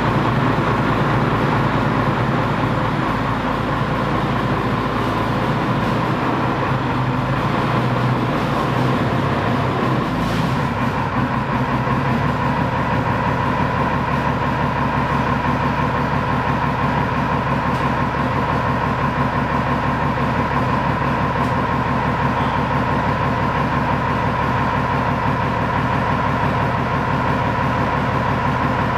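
ZSU-23-4 Shilka tracked anti-aircraft vehicle's diesel engine running steadily as the vehicle inches forward, with a steady high whine over the rumble. The low rumble shifts about ten seconds in.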